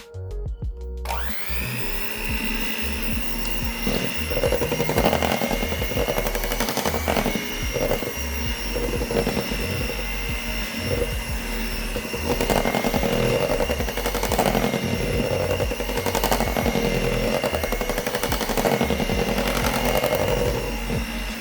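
Electric mixer starting up about a second in, then running steadily with a high whine as it mixes chocolate cake batter.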